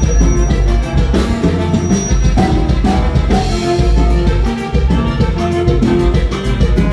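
Live norteño band playing an instrumental passage: a lead melody over bass and a driving drum beat.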